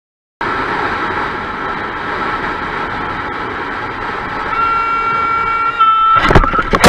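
Motorcycle riding with steady engine and wind noise. A horn sounds from about four and a half seconds in, then the bike collides with a car: a loud, sudden crash near the end.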